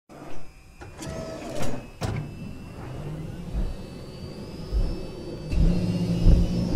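Sharp metallic clicks and clanks, then a rising whine with low thumps coming closer together and a deep drone building near the end: a helicopter rotor hub spinning up, as cinematic sound design.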